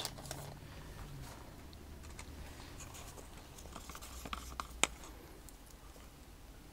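Faint light scrapes and knocks of plastic paint cups being handled and set down on a work table, with one sharp click about five seconds in.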